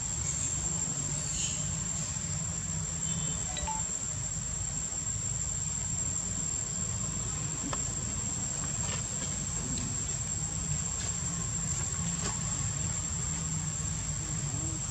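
Insects droning in one steady, high-pitched tone over a low steady rumble, with a few faint chirps in the first few seconds.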